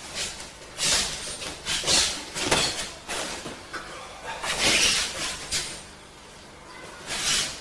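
Two martial artists working through a partner kata: a run of brief swishes, rustles and slaps from arms, clothing and feet as strikes and blocks are exchanged, about half a dozen bursts with a quieter pause near the end.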